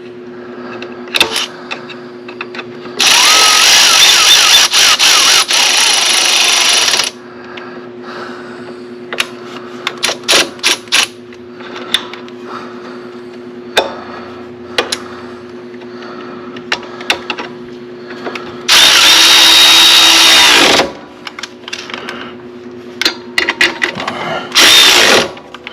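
A cordless power tool with a 1/2-inch socket running nuts down onto carriage bolts in three bursts: one of about four seconds, one of about two seconds, and a short one near the end. Small clicks and clanks of tools come between the bursts, over a steady low hum.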